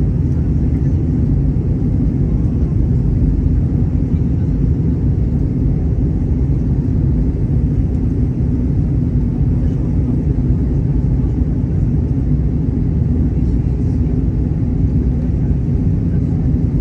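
Steady low rumble of an airliner cabin in descent: engine and airflow noise heard from inside the cabin, even throughout.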